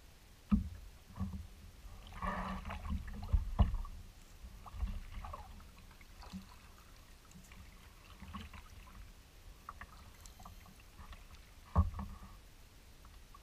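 Kayak being paddled: paddle strokes splashing in the water, with a few sharp knocks carried through the hull, the loudest about half a second in, around three and a half seconds in and near the end.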